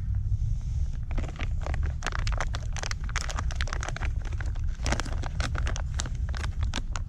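Fire-starter plugs' plastic packaging being handled: dense, irregular crackling clicks from about a second in, over a steady low rumble.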